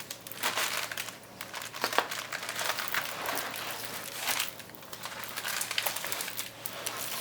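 A large diamond painting canvas and its plastic wrapping crinkling and rustling on and off as the canvas is handled and opened out.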